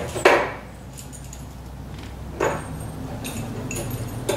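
Metallic clanks and clinks from handling metal parts: three sharp knocks about two seconds apart, the first the loudest, with light clinking around them, over a steady low hum.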